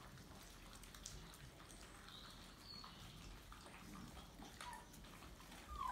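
Five-week-old St Bernard puppies eating dry kibble from metal bowls: faint scattered clicks of chewing, with a few short, high, falling puppy squeaks, the loudest right at the end.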